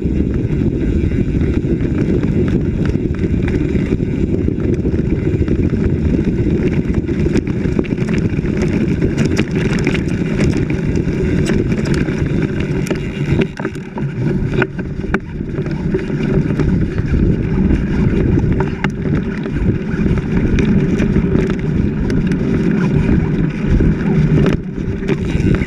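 Off-road vehicle engine running as it drives along a rough dirt track, with wind buffeting the microphone and scattered knocks from bumps in the trail.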